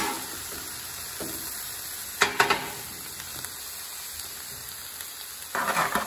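Food sizzling steadily on the hot steel flat-top of a Blackstone 22-inch tabletop griddle. Two sharp clatters come a little over two seconds in, and more clattering starts near the end.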